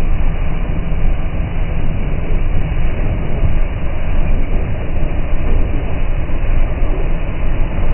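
Zaugg rotary snowblower running steadily under load, its engine and spinning rotor throwing a continuous plume of snow.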